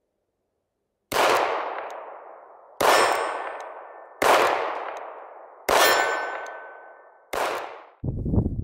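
Five shots from a Colt Cobra .38 Special snub-nose revolver, fired about one every second and a half, each ringing out with a long echo. Near the end the last echo cuts off and a low rumbling noise follows.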